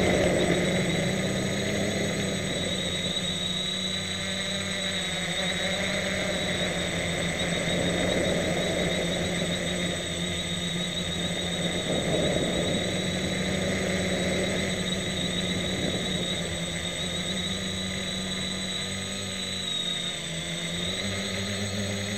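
Homebuilt Aeroquad quadcopter's electric motors and propellers whirring steadily, heard from a camera mounted on its frame. The pitch wavers up and down now and then as the motors change speed.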